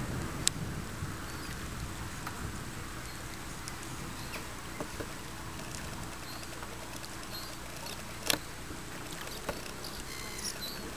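Light rain: scattered drops ticking over a steady low background of wind and rain. Two ticks stand out, one just after the start and one about eight seconds in.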